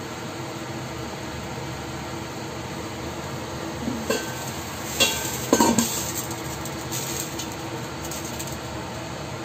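Metal pan lid lifted by its knob and set back down on a stainless-steel pan, giving a few sharp clinks and a short rattle about four to six seconds in, over a steady hiss.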